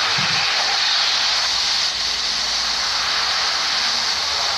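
A steady, even hiss, loudest in the upper-middle range.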